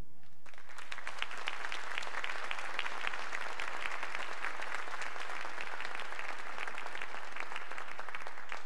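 Audience applauding, a steady dense patter of clapping.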